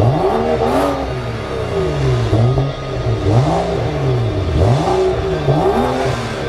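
BMW sedan's engine revved repeatedly through an aftermarket GSP dual-tip exhaust, the pitch climbing and falling about once a second in a string of throttle blips.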